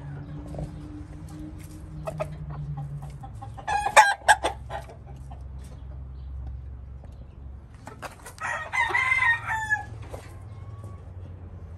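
Roosters calling: a short, loud squawk about four seconds in, then a crow of about a second and a half near the nine-second mark.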